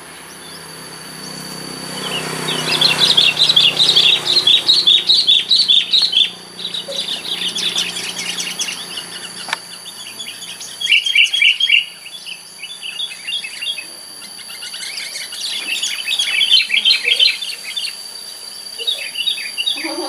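Sooty-headed bulbuls calling in bursts of quick, chattering notes, several seconds at a time with short pauses between, over a thin steady high-pitched tone.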